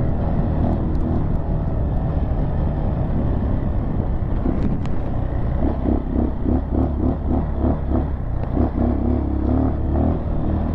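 Dirt bike engine running under way over a rough sandy trail, its note pulsing in a steady rhythm from about six seconds in.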